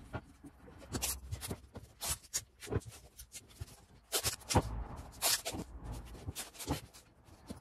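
Masking tape pulled off its roll in short rasping strips and pressed onto a wooden sign, with light knocks and rubbing as the sign is handled on a workbench.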